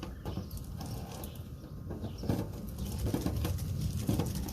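Scattered short knocks and rustling from working a screw-together dryer-vent brush rod by hand inside the vent duct, over a low rumble.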